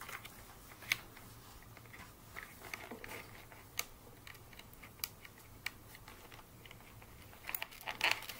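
Scattered light clicks and taps of cardboard pieces being handled and fitted together, a cardboard background being slotted into a cardboard stand, with a quick cluster of louder taps near the end.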